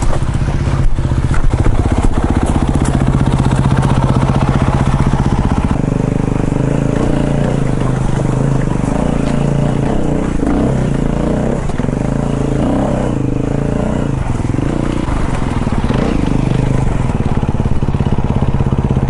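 Dirt bike engine running at low revs as the bike picks its way over rocky ground, the pitch wavering gently with small throttle changes.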